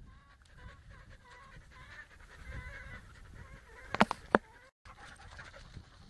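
Dogs playing, with three short sharp yelps close together about four seconds in; the sound cuts out for a moment just after.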